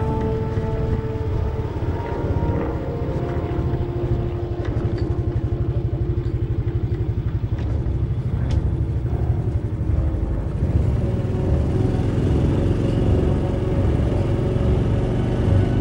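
Italika XT110RT's small single-cylinder four-stroke engine running steadily as the bike rides slowly over cobblestones, a low pulsing rumble. Music fades out in the first second or so.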